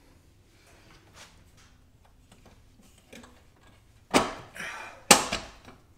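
Hand tool working on the strut tower bar's mounting nuts: a few faint ticks, then two loud metallic knocks about a second apart near the end, each trailing off briefly.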